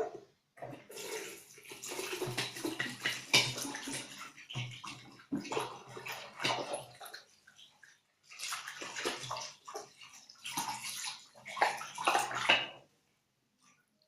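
Wet sloshing and splashing of water in irregular bursts with short pauses, as in rinsing something under running water.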